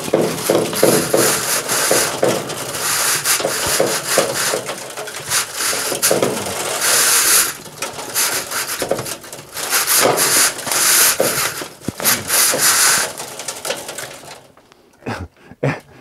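A chimney brush scraping in irregular strokes inside a metal stovepipe, worked up and down on a cord, to scrub creosote out of the pipe. The scraping stops about a second and a half before the end, leaving a few sharp clicks.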